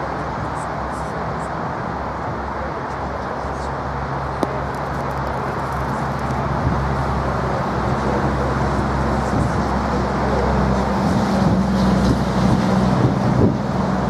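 Steady hum of road traffic with a low engine drone that grows louder over the second half. A single sharp click about four seconds in.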